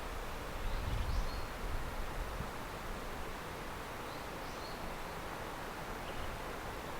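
Steady outdoor background hiss with some low wind rumble on the microphone, and a few faint, short, high bird chirps: about one second in, again around four to five seconds in, and once near six seconds.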